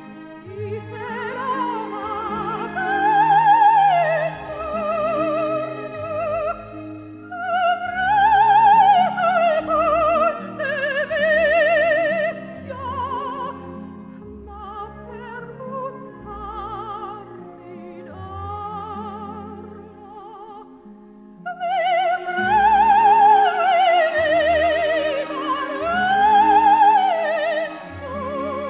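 Background music: an operatic voice singing long, held notes with wide vibrato over instrumental accompaniment, easing into a softer passage midway before the singing swells again.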